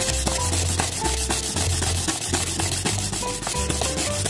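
Steel valve shim, held in a bolt head, rubbed rapidly back and forth on 100-grit sandpaper, grinding it thinner to open up a too-tight valve clearance. Background music with a bass line plays underneath.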